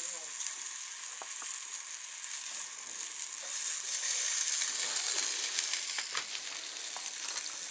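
Flour-dredged pink salmon steaks frying in a nonstick pan: a steady high sizzle with scattered pops and crackles.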